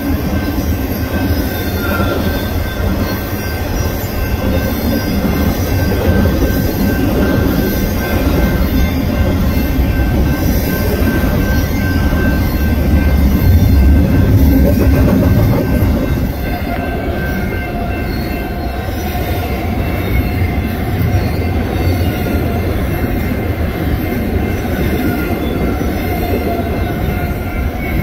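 Freight train rolling past close by: a continuous heavy rumble of steel wheels on rail, loudest about halfway through, with thin steady high-pitched tones over it.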